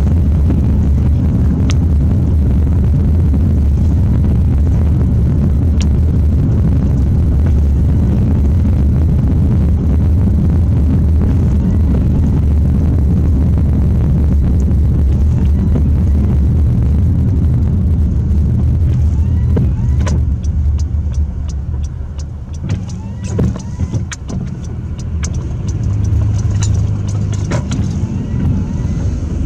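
Road noise inside a car's cabin while driving: a steady low drone of engine and tyres on wet pavement. About two-thirds of the way through it drops quieter for a few seconds, with a scatter of ticks and clicks, then builds again.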